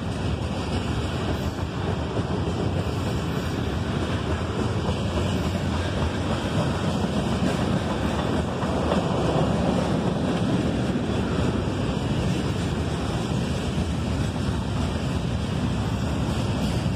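Freight cars (covered hoppers, a tank car and gondolas) rolling past on steel wheels: a steady roar of wheels on rail that swells slightly about halfway through.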